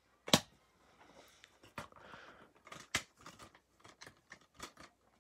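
Plastic Blu-ray case being handled, with a sharp plastic click about a third of a second in and another about three seconds in, and lighter clicks and rustling between.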